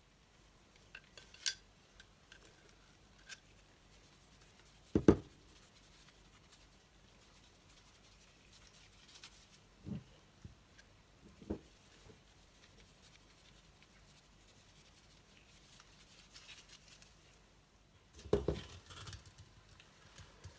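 Scattered knocks and taps from kitchen things being handled on a work surface: one sharp knock about five seconds in, a few softer taps around ten to twelve seconds, and a short clatter near the end.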